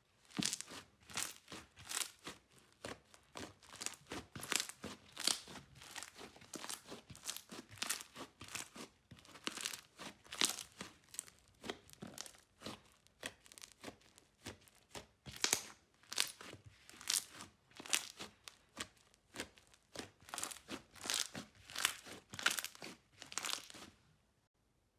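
Hands squeezing and pressing slime, each squeeze bringing a quick burst of crackling and popping from air pockets in it, about twice a second. It stops abruptly near the end.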